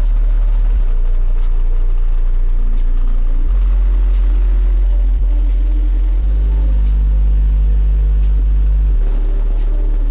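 High-power car audio system, about 32,000 watts into four working 18-inch JVF 4.0 subwoofers, playing deep bass notes at extreme volume. Each note is held for a few seconds before stepping to the next. It is heard from just outside the open driver's window.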